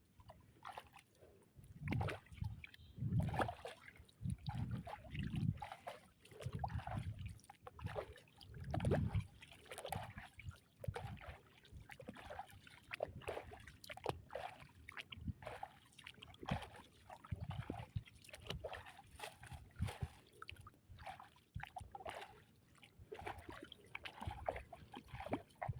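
Water sloshing and splashing in irregular surges, with small trickles and drips between them, heaviest in the first part.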